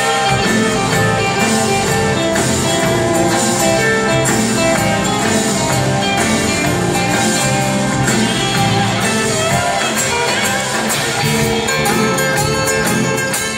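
Live rock band playing an acoustic set: strummed acoustic guitars over drums, heard through a phone in the concert hall.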